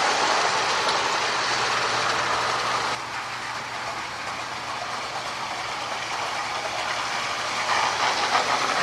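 Marx model E7 diesel locomotive running on track: its electric motor whirring and wheels clattering over the rails. Louder at first, quieter from about three seconds in, then louder again near the end.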